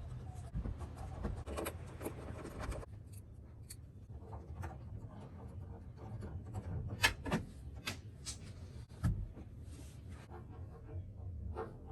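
Rubbing or scraping for about the first three seconds, then scattered clicks and taps, the sharpest a few in a row about seven seconds in and one near nine seconds.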